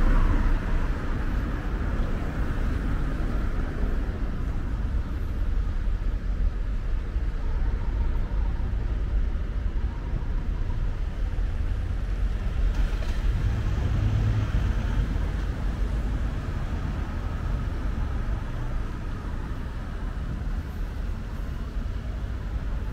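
City street traffic: cars and vans driving past on tarmac, a steady low rumble of engines and tyres. A car passing close by makes it loudest at the start, and another vehicle swells the rumble about two-thirds of the way through.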